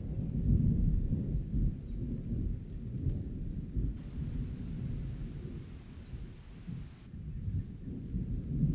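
Thunderstorm: a continuous, uneven low rumble of thunder with rain, and a brighter rain hiss that comes in about four seconds in and drops away about three seconds later.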